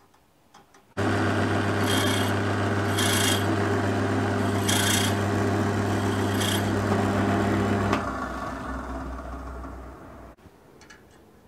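Meddings pillar drill switched on about a second in, its motor running with a steady low hum. A clearance drill bit cuts into the mouth of a tapped hole in four short bursts of hissing cutting noise. About 8 s in the motor is switched off and the drill runs down to a stop.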